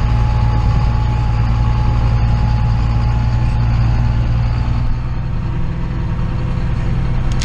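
Heavy diesel engine of harvest machinery running steadily, with a thin steady whine above it; the engine note drops slightly about five seconds in.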